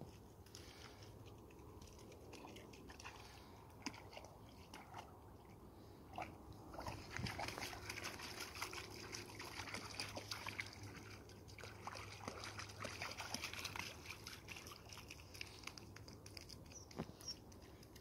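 A dog wading and paddling in shallow river water, splashing and sloshing, with a quicker run of small splashes in the middle stretch.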